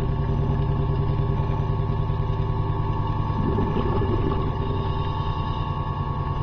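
Steady machinery hum heard underwater, made of several held low tones with a rumble beneath, most likely a ship's running machinery carried through the hull and water.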